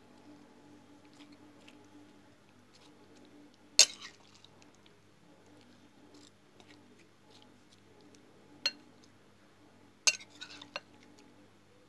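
Metal serving spoon clinking against the dishes as fruit chaat is spooned from a glass bowl onto a plate. There is one sharp clink about four seconds in, the loudest, another near nine seconds, and a short run of clinks near the end.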